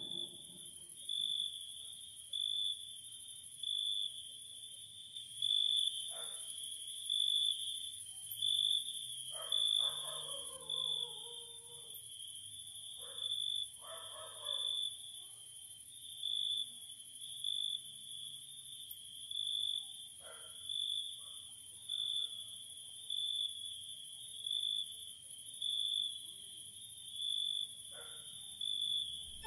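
Cricket chirping steadily, a short chirp about once a second, over a faint constant high hiss, with a few faint soft noises in between.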